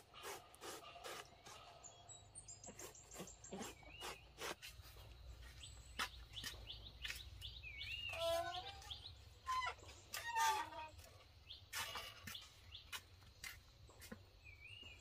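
Small birds chirping and calling, with a quick high trill about two seconds in, among many short sharp clicks and knocks.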